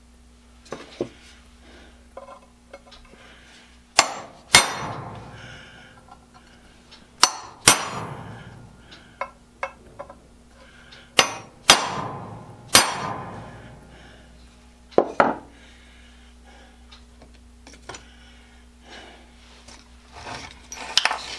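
Hammer striking a center punch on a steel plate, about nine sharp metallic taps with a short ring after each, mostly in pairs a few seconds apart, marking hole centres for drilling.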